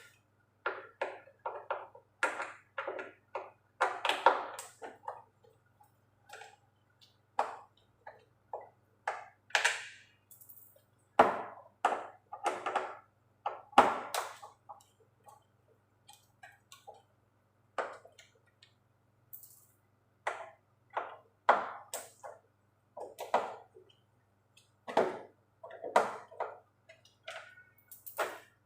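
Irregular clicks, taps and knocks of a Phillips screwdriver working screws out of a plastic washing-machine top cover, with small metal-on-plastic clinks as the screws come loose.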